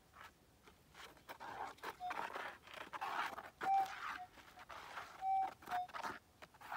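Gold metal detector giving about five short beeps at one steady pitch as its coil is swept over a buried gold nugget, a target response, with irregular scuffing noise between the beeps.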